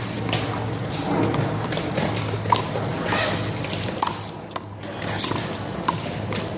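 Sharp slaps of a rubber handball struck by hand and smacking off the wall during a one-wall handball rally, a few irregular hits about a second apart, over a steady low hum.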